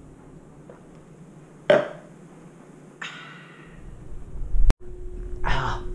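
A short, loud vocal burst just after a drink of iced tea, then a breathy exhale about a second later.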